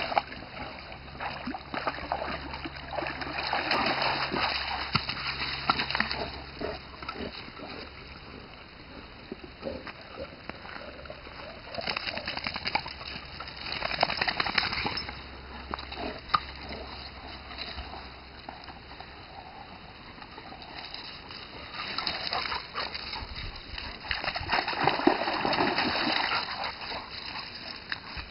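Two dogs playing rough in a shallow stream and on its pebble bank: water splashing and paws scrabbling over gravel in several loud bursts, with the dogs grunting and growling as they tussle over a stick.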